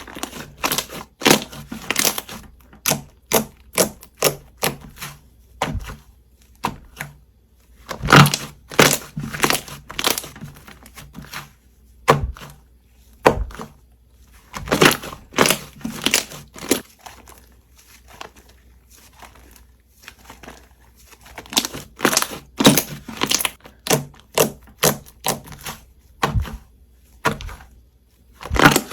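Slime being pressed and squished by hand, giving bursts of sharp crackling clicks and pops, each burst a few seconds long with short pauses between.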